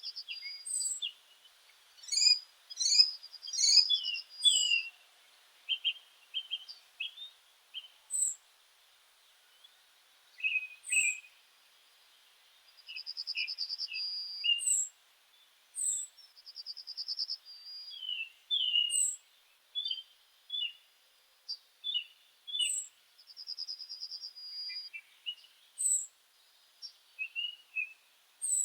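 Several meadow birds singing and calling. A fast, buzzy trill of about a second and a half repeats every few seconds among sharp, very high chirps and shorter, lower warbled notes, with a busy burst of calls a few seconds in.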